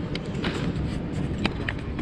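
Airport baggage-claim hall ambience: a steady low rumble with a few short clicks and knocks, about four in two seconds.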